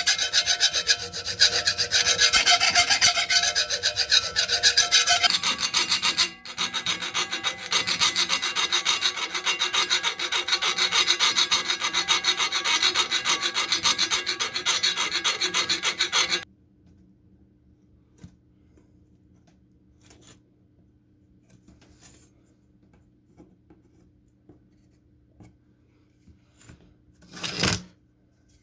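Fast, steady abrasive rubbing on a rusty knife blade, typical of sanding or filing off rust. It stops a little past halfway. After that there is only a faint hum, a few small clicks and one brief knock near the end.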